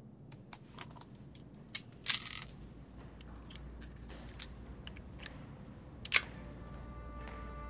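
Metallic clicks of a revolver being handled: scattered small clicks, a short rattle about two seconds in, and one sharp, loud click just after six seconds. Faint string music begins to fade in near the end.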